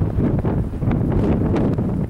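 Strong blizzard wind buffeting the microphone: a loud, uneven rumble that keeps swelling and dipping in gusts.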